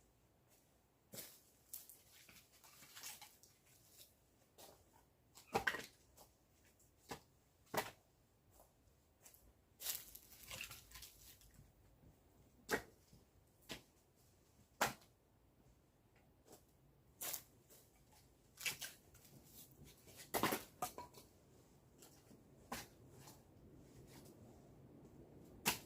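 Split firewood logs knocking against each other as they are handled and stacked: irregular short, sharp knocks, about one every second or two.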